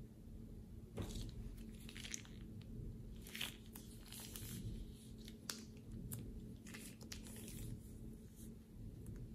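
Plastic piping bag crinkling and crackling as it is squeezed, with soft sticky sounds of slime being pushed out onto slime. It is faint, in scattered short crackles.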